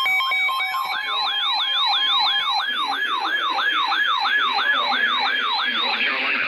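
Emergency alert broadcast's electronic attention signal. A stepped, alternating beep pattern gives way about a second in to a fast siren-like yelp of about three rising-and-falling sweeps a second, which cuts off near the end into a hiss.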